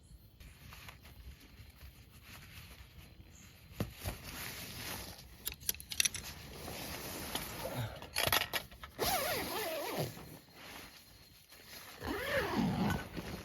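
Handling noises close to the microphone: rustling with scattered sharp clicks and scrapes, and squeaky sliding sounds that fall in pitch twice, a few seconds apart.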